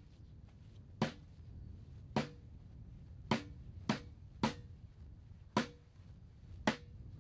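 Marching drum taps: single sharp strikes on a drum, spaced about half a second to a second apart, keeping the band's marching step.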